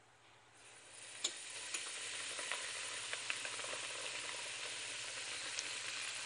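Semolina flour going into hot oil in a stainless steel pot, the oil sizzling. The sizzle starts about half a second in, builds over the next second or so to a steady hiss, and carries a few sharp pops.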